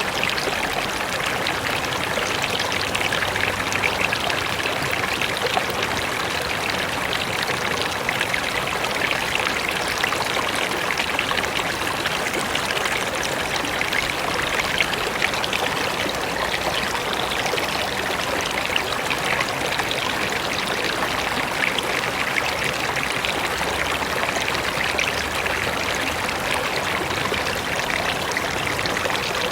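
Mountain river rushing over rocks: a steady, even wash of flowing and splashing water with fine bright splashes.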